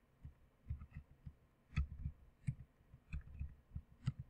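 Computer keyboard being typed on slowly: irregular soft key clicks with dull thumps, a few keystrokes a second at most.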